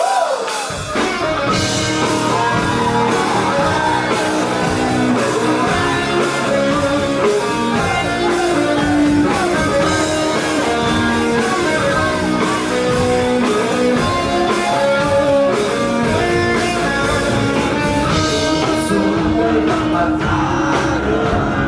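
Rock band playing live, loud and steady: electric guitars over a drum kit.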